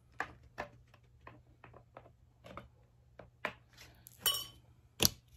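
Light, irregular clicks and clinks of a mini growhouse's frame bars and plastic connectors being handled and pressed together, about two a second. A brief ringing clink comes a little past four seconds in and the sharpest click about five seconds in.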